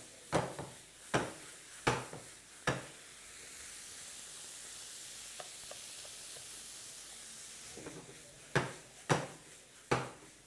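A spatula stirring boiled dal mash (urad dal) through a frying masala in a pan: four sharp strokes against the pan, a steady sizzle for several seconds, then three more strokes near the end.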